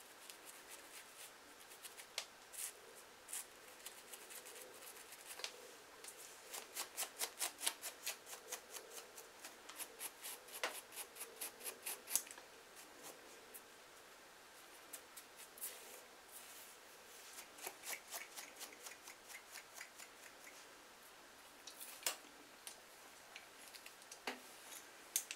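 Crisp scraping and scratching on a dry, flaky scalp as dandruff flakes are loosened and lifted. The strokes come in quick runs, fastest through the middle at about three or four a second, then sparser, with a few louder single scrapes near the end.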